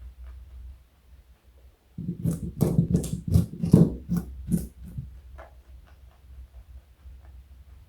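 Rabbit crunching a carrot: about ten crisp bites and chews in quick succession, starting about two seconds in and lasting some three seconds, then fainter chewing clicks.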